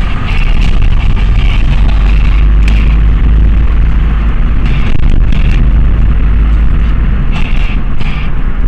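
Driving noise inside a car's cabin: a loud, steady low rumble of engine and road, heaviest in the bass.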